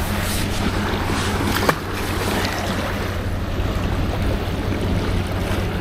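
Steady sea wash and wind at the shoreline, with wind rumbling on the microphone; a brief faint squeak comes about a second and a half in.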